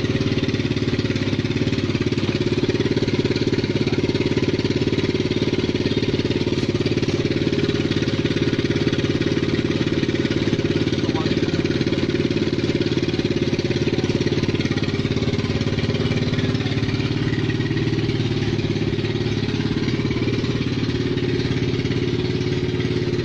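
Engine of a 125 cc ATV idling steadily.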